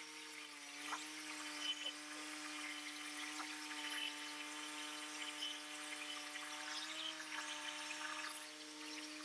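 Gasoline engine of a sawmill running steadily at an even pitch, with a constant hum.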